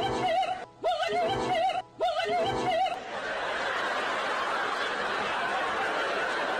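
A high, wavering giggle, played three times in a row with the same burst of about a second each, then a steady hiss-like noise over the rest.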